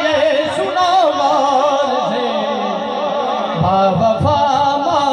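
A man singing a naat, Urdu devotional verse in praise of the Prophet, into a microphone over a sound system, drawing out long melismatic notes whose pitch wavers and slides.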